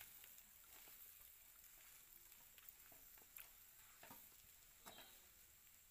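Faint sizzling of quail fry in a pan, with a few soft clicks as the pieces are mixed by hand.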